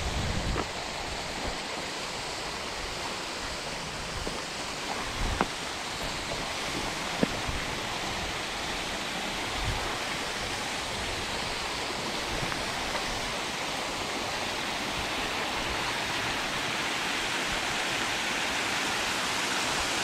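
Small hillside waterfall cascading over rock ledges: a steady rushing of falling water that grows slightly louder toward the end. A couple of sharp clicks come about five and seven seconds in.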